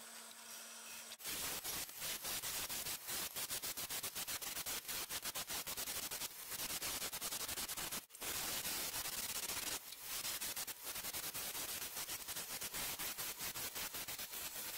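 Wood lathe turning a wooden lure blank while a hand-held turning tool cuts into it: a steady scraping hiss with a rapid flutter. It starts about a second in, breaks off for a moment about eight seconds in, and changes slightly near ten seconds.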